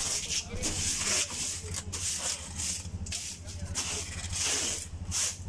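A short bundled-bristle hand broom sweeping across a van's matted cargo floor: repeated scratchy swishes, roughly one stroke a second.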